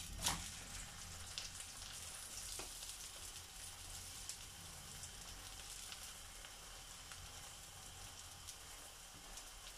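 Keema paratha sizzling faintly on a hot tawa as oil is brushed over it with a silicone brush. A soft slap comes just after the start as the flipped paratha is laid back on the pan.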